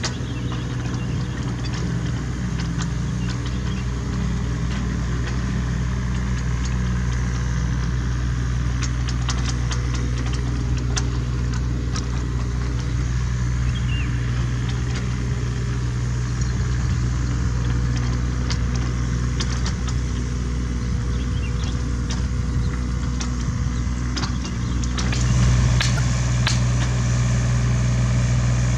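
Hitachi Zaxis 33U mini excavator's diesel engine running steadily while digging, with scattered clicks and knocks. The engine gets louder about 25 seconds in.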